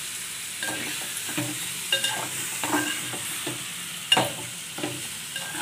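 Metal spatula stirring part-boiled chicken pieces through gongura in a metal pot over a steady sizzle, with a scraping stroke about every two thirds of a second; the sharpest stroke comes about four seconds in.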